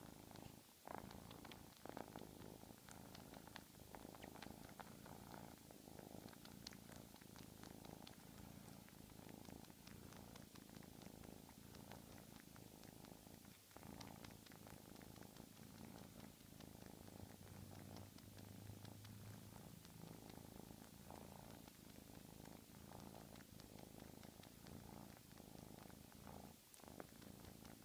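Kitten purring steadily and faintly, close to the microphone, with small clicks now and then as she kneads and suckles at a fleecy dressing gown.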